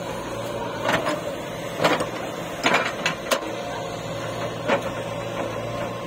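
A JCB 3DX backhoe loader's diesel engine running steadily while the backhoe arm works, with several sharp knocks about a second apart.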